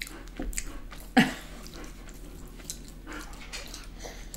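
A dog whining briefly about a second in, with faint small clicks of eating around it.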